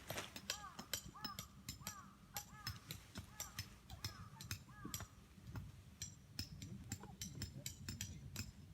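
A crow cawing in a quick run of about eight short rising-and-falling calls, with scattered sharp clicks and taps throughout.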